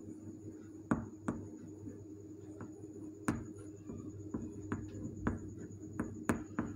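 Chalk writing on a chalkboard: irregular sharp taps as the chalk strikes the board, a dozen or so spaced unevenly, with faint scratching between them. A steady low hum runs underneath.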